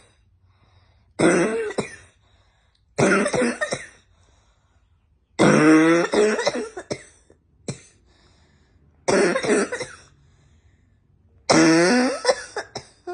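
A person with a spring cold coughing in repeated fits: six bursts of coughs about two seconds apart, one of them a short single cough.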